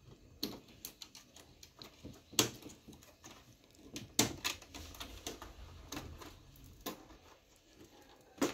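Irregular small plastic clicks and snaps of wire-harness connectors and flat ribbon cables being pulled off a Xerox B215 laser printer's logic board, the two loudest about two and a half and four seconds in.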